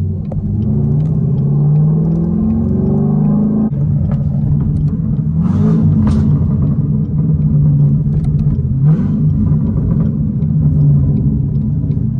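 Straight-piped C7 Corvette Grand Sport's 6.2-litre LT1 V8 accelerating, heard from the cabin. The exhaust note rises in pitch, drops sharply at an upshift about four seconds in, then climbs again and holds, with another rise near the end.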